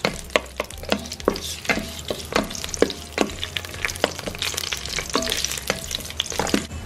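A wooden spatula stirring whole spices, bay leaves and raisins in hot oil in the aluminium inner pot of a Geek Robocook electric cooker on sauté. There are repeated clicks and scrapes of the spatula against the pot over a faint sizzle, with a low steady hum underneath.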